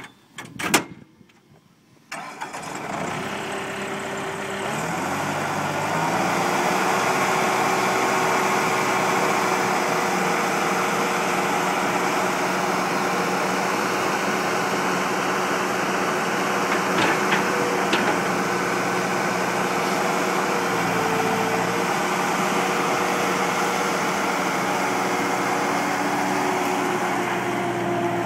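Bobcat 863 skid steer's 73 hp Deutz diesel starting about two seconds in, after a couple of knocks, then speeding up in steps over the next few seconds and running steadily.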